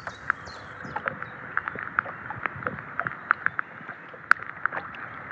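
Water sloshing and dripping in a landing net as a fish is unhooked in the shallows: a low wash with a scatter of small, irregular splashes and ticks.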